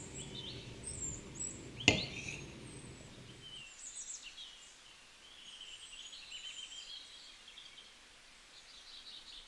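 Small birds chirping in short, high, gliding calls. A single sharp click about two seconds in, and a low background noise that cuts off abruptly a little later.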